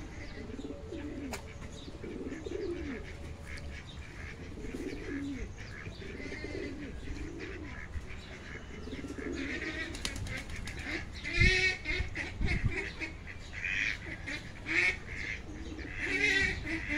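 Pigeons cooing in low, repeated phrases, joined about ten seconds in by ducks giving loud, repeated quacks. Two low thumps come during the quacking.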